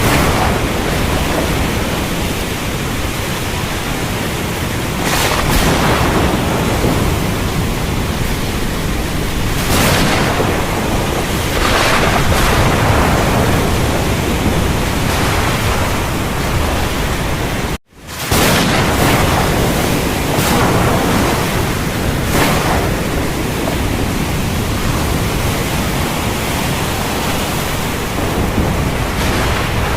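Heavy rain as a dense, steady hiss, with brief swells every few seconds and low thunder rumbling near the start and again near the end. A little past the middle the sound cuts out for an instant and comes straight back.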